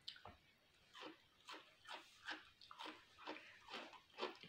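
A person chewing a raw cucumber slice close to the microphone: repeated short crunches, about two a second, starting about a second in.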